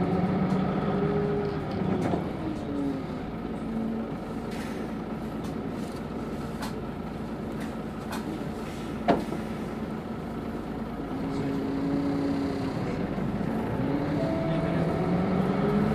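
Hino BJG-HU8JLFP city bus running, heard from inside: the drivetrain's pitch rises and then falls in the first few seconds, holds steadier, and rises again near the end as the bus speeds up and slows. One sharp knock about nine seconds in.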